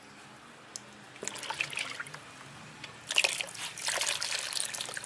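Raw tiger prawns being handled in water: irregular splashing and dripping that starts about a second in and grows busier later.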